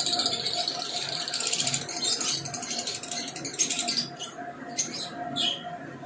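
Lovebirds chattering: a rapid, buzzy high-pitched chatter for about the first two seconds, then a few short separate chirps, one of them falling in pitch.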